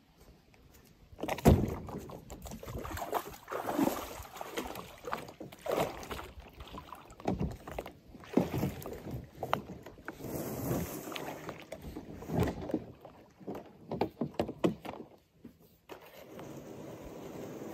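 A kayak being set down and launched from a sandy bank into shallow river water: a loud knock about a second and a half in, then irregular knocks, scrapes and splashes as the paddler gets in, and near the end softer, steadier water noise from paddle strokes.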